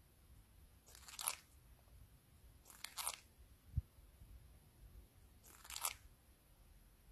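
An Indian ringneck parakeet grinding its beak: three short, faint scrapes a couple of seconds apart. Beak grinding is a sign of a relaxed, sleepy bird. A soft low thump comes between the second and third scrapes.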